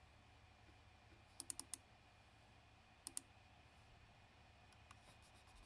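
Computer mouse buttons clicking: a quick run of four clicks about one and a half seconds in, two more about three seconds in, then a few fainter ticks near the end, over a faint steady hum.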